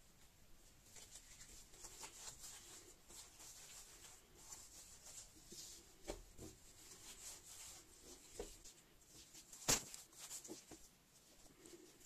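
Faint rustling and soft knocks of gloved hands rolling and stretching soft yeast dough into a log on a wooden counter, with one sharp tap a little before the end.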